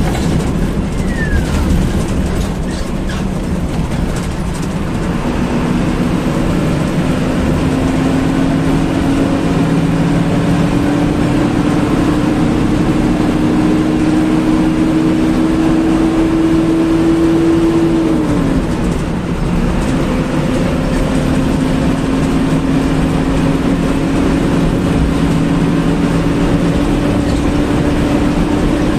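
A bus engine and its road noise, heard from inside the cabin as the bus drives fast. The engine note climbs slowly for over ten seconds, drops sharply about two-thirds of the way through, then climbs again.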